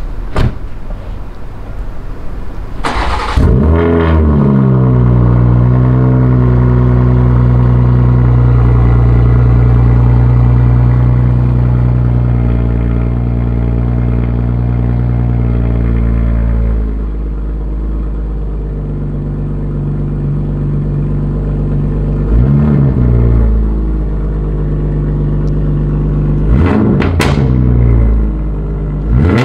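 Straight-piped 2022 BMW 840i's 3.0-litre turbocharged inline-six cold-starting: the starter cranks briefly about three seconds in, the engine catches with a loud flare, and it settles into a steady, loud fast idle. Partway through, the idle drops to a lower, quieter note. Near the end the engine is blipped a few times.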